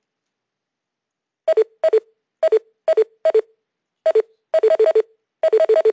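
Conference-call bridge tones: short two-note beeps, a higher note dropping to a lower one, first one at a time every half second or so, then in quick runs of several near the end. Such falling tones are typical of callers hanging up and leaving the call.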